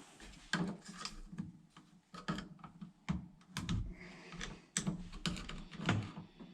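Irregular metal clicks, taps and scrapes from a snap-ring tool being worked on a steering column shaft, pressing a snap ring down toward its groove.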